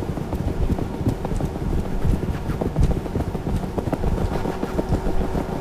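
Dense low rumbling noise crowded with rapid, irregular clicks and knocks, with a faint steady hum underneath: an abstract noise soundtrack.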